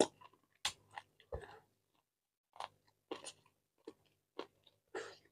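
A man chewing a mouthful of chicken curry and rice: a run of short, irregular chewing and mouth sounds, with a pause of about a second near two seconds in.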